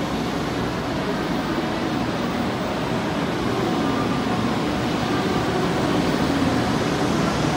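Shinkansen 500 Series train pulling out along a station platform and gathering speed, its motors and wheels running as a steady rumble that grows gradually louder as the cars pass.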